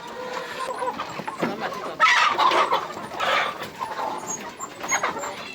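Chickens clucking, with two louder calls about two and three and a half seconds in.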